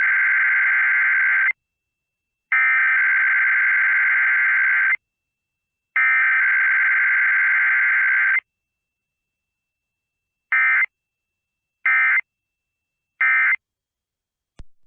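Emergency Alert System SAME digital data tones for a Required Weekly Test: three long bursts of two-tone data (the header, each about two and a half seconds, about a second apart), then three short end-of-message bursts about a second and a half apart. There is no attention tone or voice message between them.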